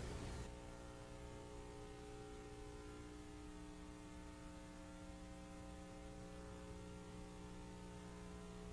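Faint, steady electrical hum made of several even tones that hold without change.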